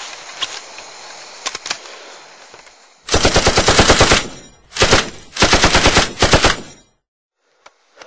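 Rapid machine-gun fire: a long burst of many shots a second, a brief burst, then another long burst, ending abruptly. Before it come a few light clicks over faint outdoor noise.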